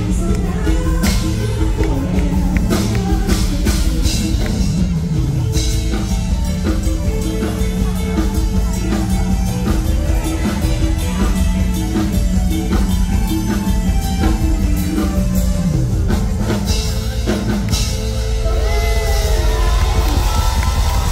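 Live luk thung band music played through a stage PA: a drum kit keeping a steady beat under a bass line and sustained keyboard notes, with the singer's voice coming in at times. Near the end, crowd cheering and whistles rise over the music.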